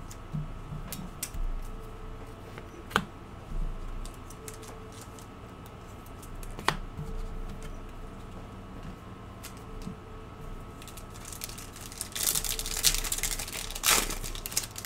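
Glossy trading cards being handled in the hands, with a few light taps. Near the end comes a burst of crinkling from a foil card pack as it is opened.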